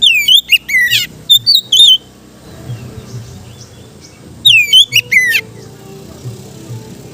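Oriental magpie-robin (kacer) singing: loud, clear whistled phrases of down-sweeping notes in two bouts, one lasting about two seconds at the start and a shorter one about four and a half seconds in.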